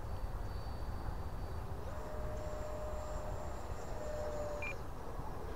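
Distant whine of the E-flite Viper 70 mm electric ducted-fan jet in flight: a thin, steady tone that steps up in pitch about two seconds in as the fan speeds up, then fades near the end, over a low rumble.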